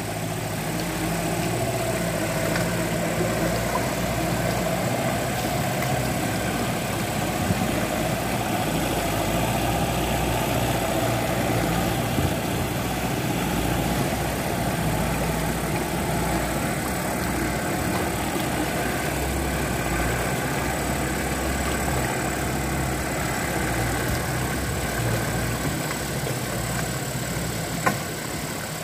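Kubota L1-285 tractor's diesel engine running steadily while pulling a heavy load of timber, with one sharp knock near the end.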